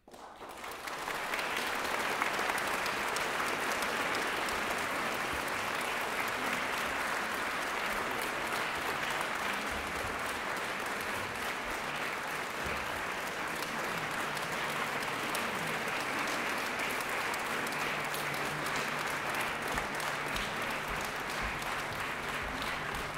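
Audience applauding, breaking out of near silence and swelling within the first second, then holding steady.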